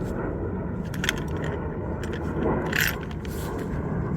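Handling noises from work on a car door lock actuator: a few light clicks and a brief scrape of parts being moved and pried at.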